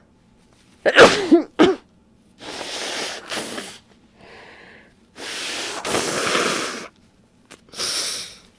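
A woman with a head cold gives a loud double sneeze about a second in, then blows her congested nose hard into tissues several times, in long rushing blasts.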